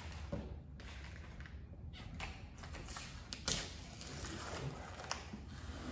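Application tape being picked at and started off a freshly applied vinyl graphic: faint rustling of paper tape with a few sharp little clicks in the second half.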